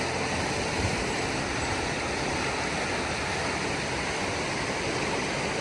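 Mountain headwater stream rushing steadily, running high with a lot of water.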